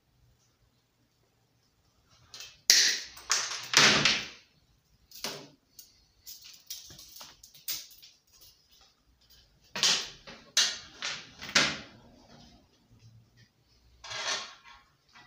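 Pliers, small metal parts and the plastic recoil-starter pulley clattering and knocking as they are handled and set down on a work board: a loud cluster of knocks about three to four seconds in, several more around ten to twelve seconds, and one more near the end.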